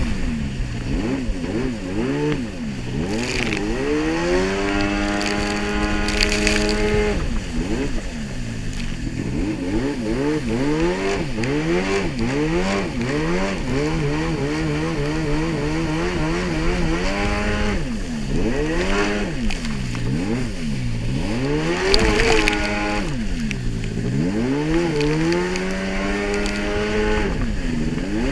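Jet ski engine at speed, its revs dropping and climbing again several times as it is throttled through turns, and wavering rapidly up and down for a few seconds in the middle. Wind and water spray rush over the microphone, with a few sharp splashes.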